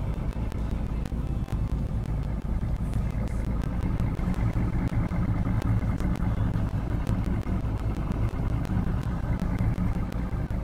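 Boat outboard motor running steadily under way, a continuous low engine hum.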